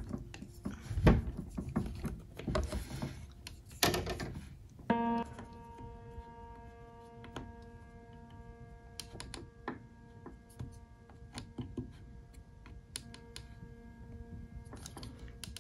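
Hard plastic figure parts knocking and clicking as a clear plastic wing is pushed onto a painted scale figure, the loudest knocks about one and four seconds in. From about five seconds in, soft background music with long held notes runs under a few light clicks.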